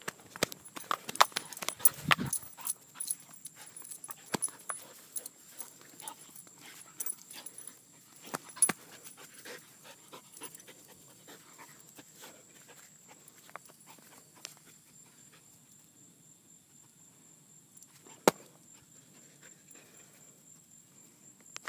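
Airedale Terrier panting, with many quick footfalls and splashes on wet marsh ground, dense in the first half and thinning out later, and one sharp knock near the end. A faint steady high-pitched whine runs underneath.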